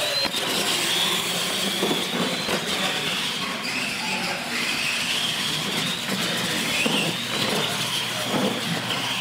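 Electric R/C monster trucks racing: a high motor-and-gear whine that wavers up and down with the throttle, over tyre noise on the concrete floor, with a few short knocks.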